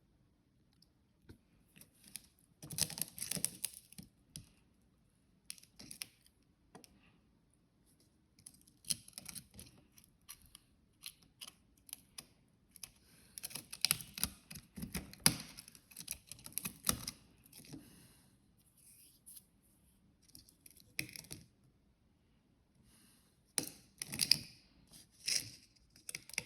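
Close hand-handling noises: irregular clicks, scrapes and rustling, with a few louder bursts of tearing or crinkling.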